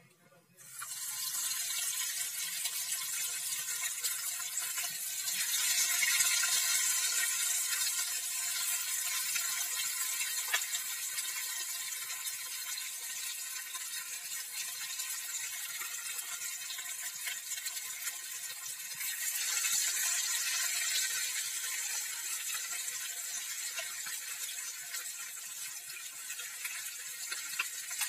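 Turmeric-and-chilli-marinated rohu fish pieces sizzling as they shallow-fry in hot oil in a kadai, the sizzle starting suddenly about a second in as the first piece goes into the oil. The hiss swells louder twice, around six and twenty seconds in, as more pieces are added.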